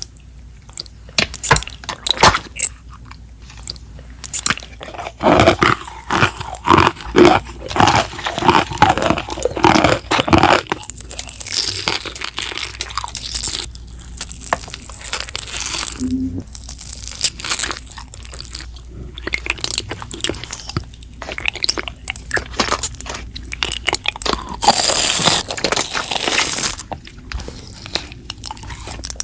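Close-miked ASMR crunching, crackling and clicking in quick clusters with short pauses, from crunchy slime being pressed and squished alternating with lip and mouth sounds.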